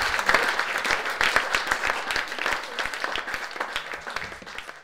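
Audience applauding, the clapping thinning and dying away toward the end.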